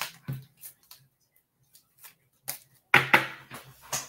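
Irregular short clicks and taps, with a louder, denser cluster of knocks about three seconds in.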